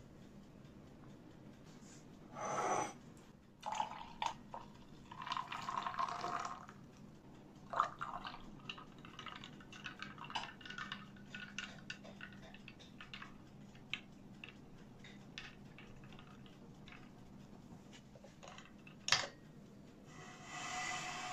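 Milk poured in a thin stream into a ceramic mug, quiet pouring and trickling broken by small clinks and taps, then a sharp knock near the end. Frothed matcha is added on top.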